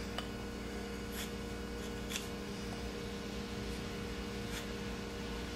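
A 1080 high-carbon steel knife blade shaving thin curls off a wooden board: a few soft scraping strokes, about a second apart, over a steady hum.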